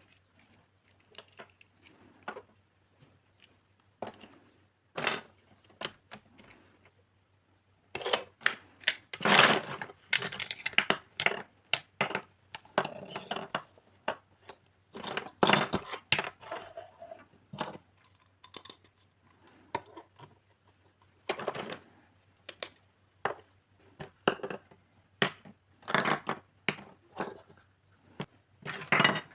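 Plastic toy kitchen pieces and their packaging being handled: irregular sharp clicks and taps with short crinkling, tearing rustles. Sparse at first, busier from about eight seconds in.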